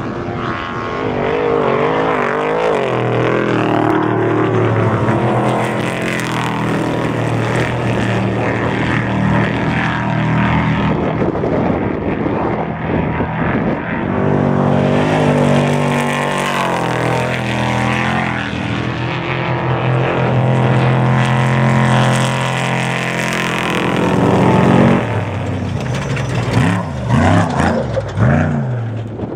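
Unlimited-class off-road race truck engine running hard under throttle, its pitch wavering with throttle changes, then holding fairly steady for a long stretch before wavering again near the end.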